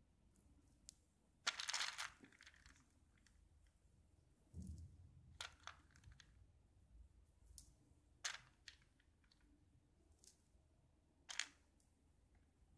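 Near silence with a few faint, short clicks and rustles from hands threading beads onto a needle and thread; the loudest is a brief rustle about a second and a half in.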